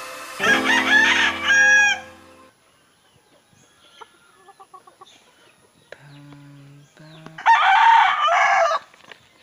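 A rooster crows once, loud, starting about seven and a half seconds in and lasting a little over a second. A short burst of music comes about a second in.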